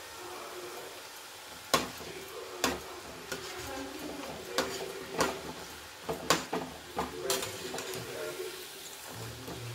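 Aloo rava (potato and semolina) fingers deep-frying in hot oil in a steel kadai, the oil sizzling steadily. A steel skimmer stirs and turns them, clinking sharply against the pan about seven times.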